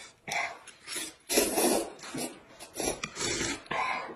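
People slurping noodles from bowls of spicy broth: a string of short, noisy slurps, the longest and loudest a little over a second in.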